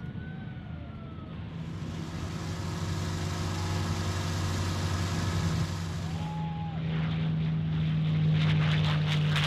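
P-51D Mustang's Merlin V12 engine at takeoff power during the takeoff roll. A steady drone builds in loudness and turns harsher and crackly in the last couple of seconds as the plane lifts off.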